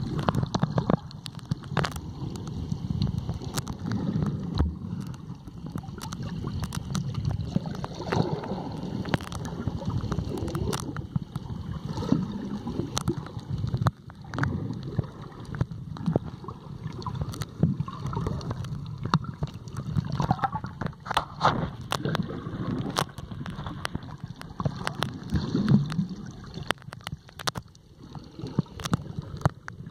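Muffled underwater water noise picked up by a submerged camera: a low, uneven rumble with gurgling swells and many scattered sharp clicks.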